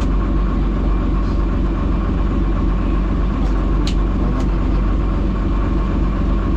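Fishing boat's engine running steadily at low revs while the net is hauled aboard, with a few light clicks about four seconds in.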